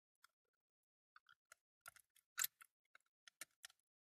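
Faint, irregular small clicks from the hand-turned winding mechanism of a die-cast Dinky Coles mobile crane toy, a sparse run of them with the loudest about two and a half seconds in.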